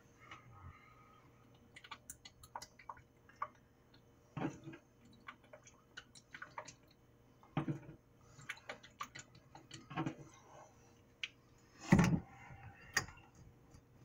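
Scattered small clicks and taps of a glass bottle being handled and poured over a plastic food-processor bowl, with a few duller knocks, the loudest about twelve seconds in.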